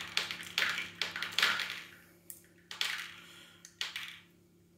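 Plastic airsoft BBs dropped one at a time through a tracer unit and landing in a small box: about six light clicks, each with a short rattle as the BB bounces. The clicks thin out toward the end.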